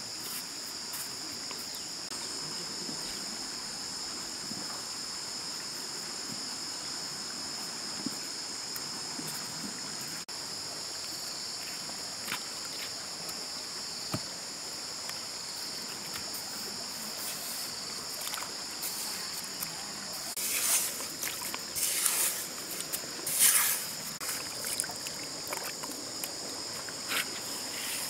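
Insects buzzing steadily in a high-pitched chorus. In the last third, a run of loud scrapes and splashes as wet mud and water are worked with a knife and hands at the river's edge.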